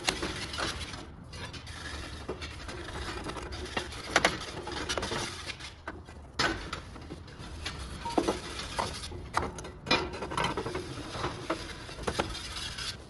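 Scattered metal clicks and knocks as knife blades are handled and slotted into the spring-loaded blade holders of a Pottinger Torro 5100 forage wagon's cutter bar. The sharpest knock comes about four seconds in.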